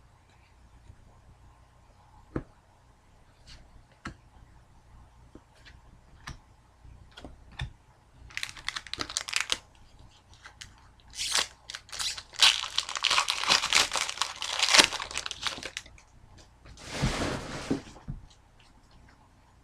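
Wrapper of an Upper Deck hockey card pack being torn open and crinkled, in three crackling spells in the second half. Before that come light clicks and taps of cards being handled.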